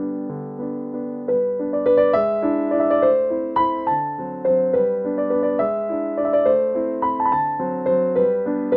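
Background piano music: a melody of struck notes that fade away, over lower held notes.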